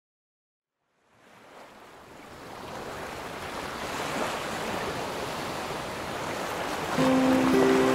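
Ocean surf washing onto a beach, fading in from silence about a second in and growing steadily louder. Near the end a few held notes of music come in over it.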